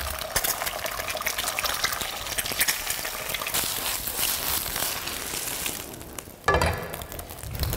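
Food sizzling in a hot pan as it is stir-fried, with the clicks and scrapes of a spatula. The sizzle eases and a dull knock comes about six and a half seconds in.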